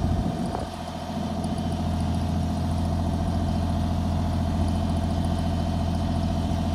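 Kubota U35-4 mini excavator's diesel engine running steadily. Its level dips briefly just under a second in, then holds even.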